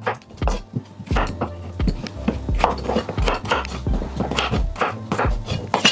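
Chef's knife chopping raw potatoes into chunks on a wooden cutting board: a quick, uneven run of sharp knocks as the blade cuts through and strikes the board.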